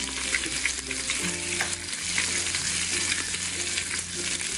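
Frying sizzle: a steady crackling hiss of a burger cooking, over a low hum.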